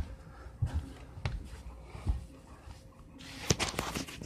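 Camera handling noise: a few separate soft knocks, then a louder stretch of rubbing and scraping with sharp clicks close to the microphone as the camera is moved off the wooden floor.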